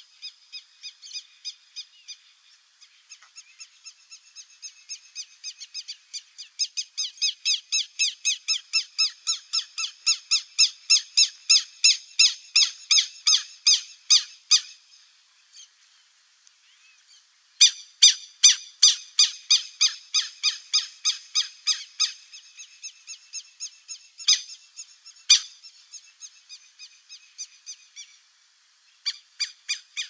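Buff-necked ibises calling in chorus: a fast run of repeated notes, about four a second, growing louder. The notes stop for a couple of seconds about halfway, start again loud, and fade toward the end.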